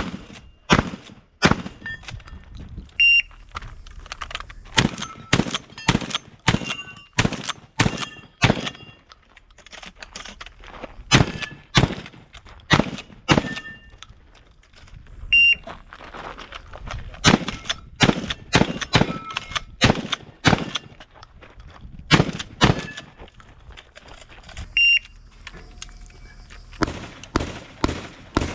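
Shotgun shots fired in rapid strings, dozens in all, with pauses between strings. Three times a short, high electronic beep sounds, typical of a shot timer's start signal, and a new string of shots follows it.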